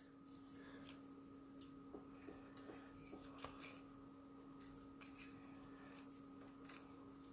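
Faint snips of small scissors cutting thin card, a scattering of soft short clicks over a low steady hum.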